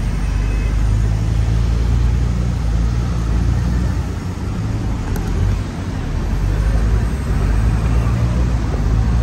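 A vehicle engine running, heard as a steady low hum over a wash of background noise.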